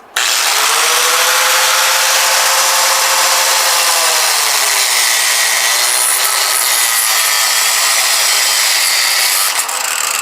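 Angle grinder with a metal cutoff disc cutting through the old scooter tire and the steel wire in its bead: a loud whine that starts abruptly, its pitch sagging and wavering as the disc is loaded, then stops shortly before the end.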